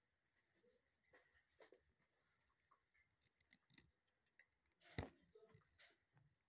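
Near silence with faint, scattered small clicks, and one sharper click about five seconds in.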